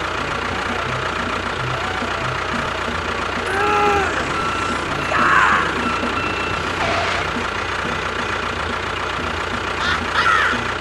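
A vehicle engine running steadily with an even low pulse. A few short pitched sounds that bend up and down come over it about four, five and ten seconds in.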